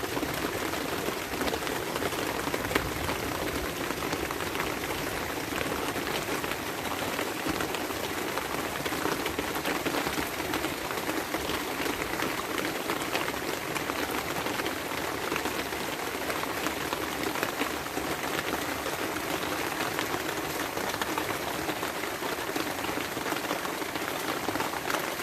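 Steady rain falling during a thunderstorm: an even, unbroken hiss of drops, with no thunderclap standing out.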